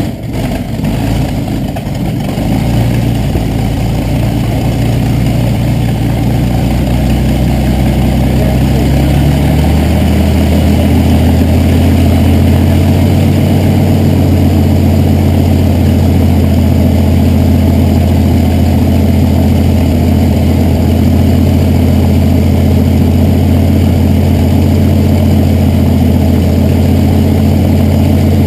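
Supermarine Spitfire and P-51 Mustang V-12 piston aero engines idling on the ground, propellers turning: a loud, deep, steady drone. The engine note shifts and grows stronger about nine seconds in, then holds steady.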